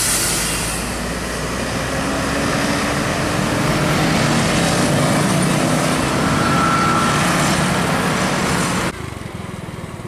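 A Mercedes-Benz OH1626 tour bus's diesel engine pulls up a bend, mixed with the running of lighter road traffic including motorbikes. The sound drops off abruptly about nine seconds in.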